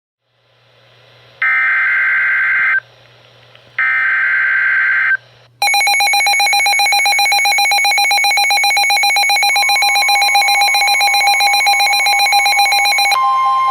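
Emergency Alert System header: two harsh, buzzy data bursts, each lasting over a second, then about five and a half seconds in, a loud continuous alert tone that holds steady.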